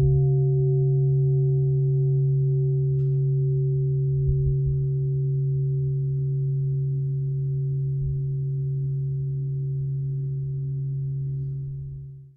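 A sustained low drone tone, steady and unwavering, with fainter higher overtones above it; it slowly weakens and fades out just before the end.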